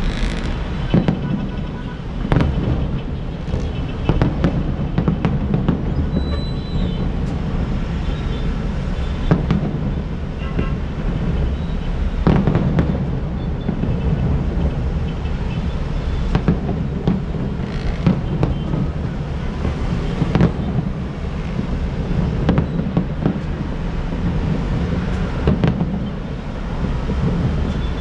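Fireworks bursting over the bay, heard from a distance: a string of irregular booms and bangs over a steady low rumble.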